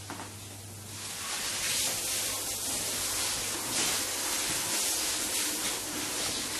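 A couple of light clicks from a door being pushed open, then from about a second in, water running and splashing in a bathroom tub as a steady hiss.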